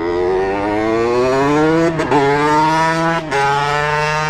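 Shifter go-kart engine accelerating hard, its pitch climbing and then dropping sharply at two upshifts, about two seconds in and again about a second later.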